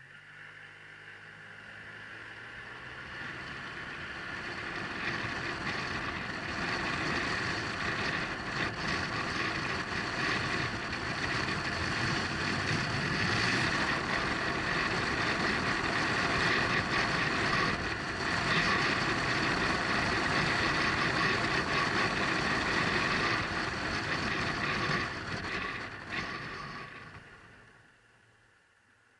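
Riding noise from a Honda SilverWing 600 scooter on the move: a dense rush of wind and engine and road noise, muffled through an action camera's waterproof case. It builds over the first few seconds, holds steady, and fades away near the end.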